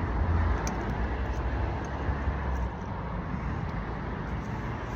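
Steady outdoor background rumble and hiss, with a few faint light ticks in the first couple of seconds.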